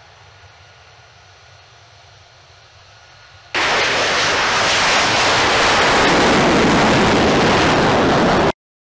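F-35A Lightning II's Pratt & Whitney F135 jet engine: at first a faint, steady hum with a few thin whine tones as the jet rolls down the runway. About three and a half seconds in, it jumps abruptly to loud, steady jet engine noise at takeoff power as the aircraft lifts off, then cuts off suddenly near the end.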